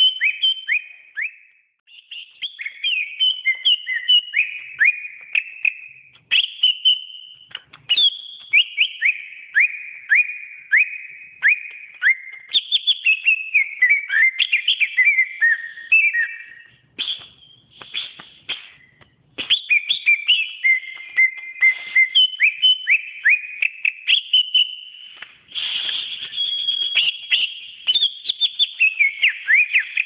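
Cucak ijo (leafbird) singing a long, varied song of quick down-slurred whistles and chattering phrases, with a few short breaks between bursts.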